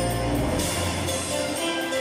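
Music playing, with held chords and a deep bass line that drops away about half a second in.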